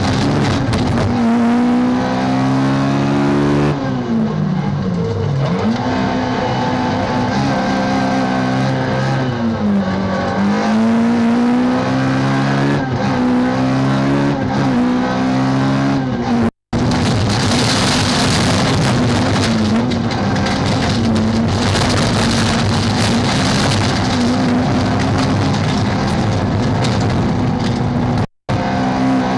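Peugeot 206 rallycross car's engine heard from inside the cabin at full race effort: revs climbing through the gears, dropping sharply under braking a few times and pulling hard again, over a hiss of tyre and road noise. The sound cuts out completely for an instant twice, once past the middle and once near the end.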